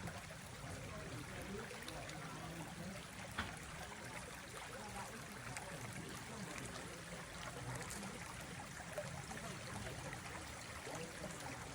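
Steady flowing water of a stream, a soft even rushing.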